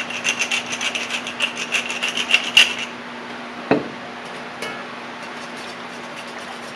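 Wooden pepper mill grinding peppercorns in a quick run of crunching clicks, about six a second, that stops about three seconds in. Then comes a single knock with a short ring, a small click, and a wire whisk stirring softly through the sauce, over a steady low hum.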